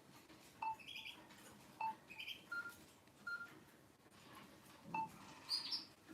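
Samsung Player Star 2 mobile phone playing a ringtone: short, high electronic chirps at changing pitches, a few per second.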